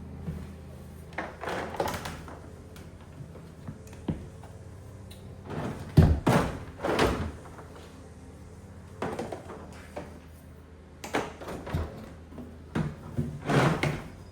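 Clunks and knocks of a power inverter being handled and fitted into a DIY power station case. They come in several clusters, the loudest about six seconds in.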